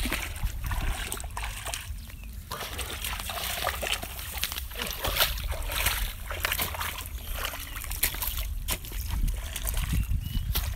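Feet and a hand hoe splashing and sloshing through shallow muddy water, in irregular bursts as the mud is churned up.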